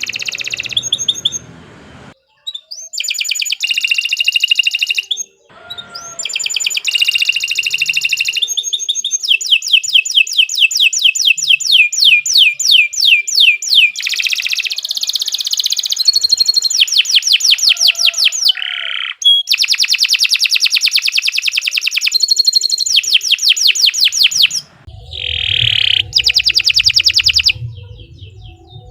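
Domestic canary singing long, continuous rolling song: rapid trills of repeated high notes in phrases a few seconds long with brief pauses between them. A low hum joins near the end.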